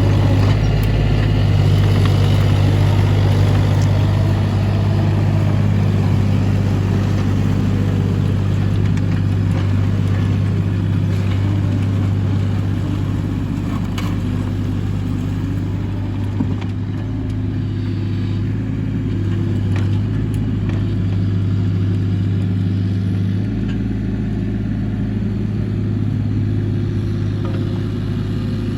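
Bobcat 325 compact excavator's diesel engine running steadily with a deep, even hum, with a few faint clicks from the machine as it works.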